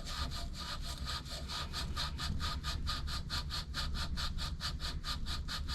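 Sandpaper rubbing a copper pipe end in rapid back-and-forth strokes, several a second, cleaning the metal bright before a soldered or brazed joint.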